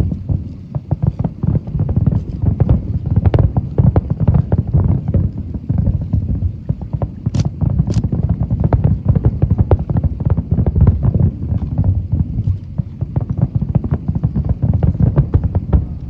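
Fireworks bursting in rapid, continuous succession: a dense run of deep booms, with two sharp cracks about halfway through.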